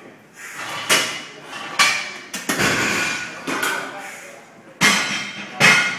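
A person's voice in short, loud bursts during a heavy barbell bench press, with a couple of sharp knocks about five seconds in.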